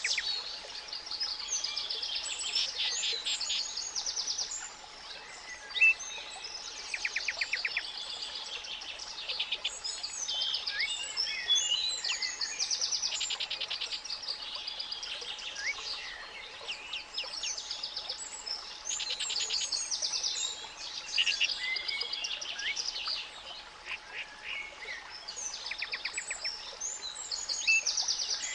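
Several spring birds chirping and singing rapid trills. A faint, steady 852 Hz pure tone hums unbroken underneath.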